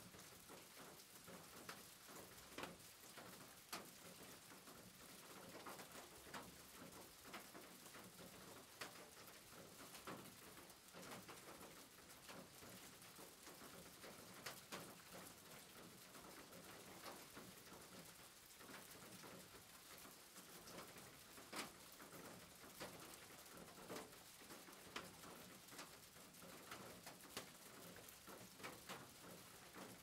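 Faint steady rain on a roof, with irregular drips and taps of patter scattered through it.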